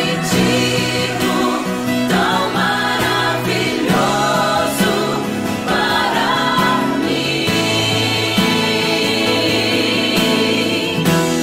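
Christian worship music: a playback backing track with choir-like voices singing over a steady band accompaniment.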